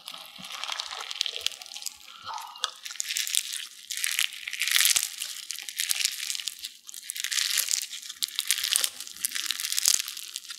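Crunchy bead-filled bingsu slime being squeezed and kneaded in the hands, the tiny beads crackling in repeated swells as it is worked.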